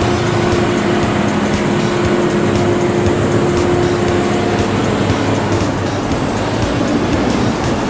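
Diesel engine of a large container top lifter running under load with a steady droning tone as it hoists a 20-foot container. The tone eases off about five seconds in.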